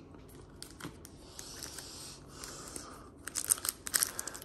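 Plastic trading-card pack wrapper being handled and opened: a few light clicks and soft rustling, then sharp, dense crinkling from about three seconds in.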